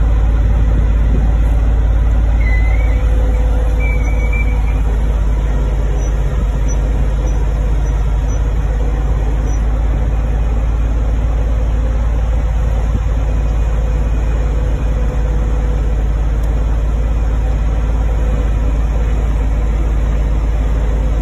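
Bucket truck's engine and hydraulics running steadily while the boom moves. A brief faint squeak about three seconds in.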